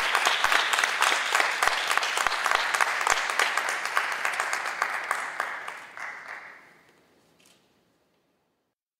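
Audience applauding. The clapping fades out over a few seconds and ends in silence about eight seconds in.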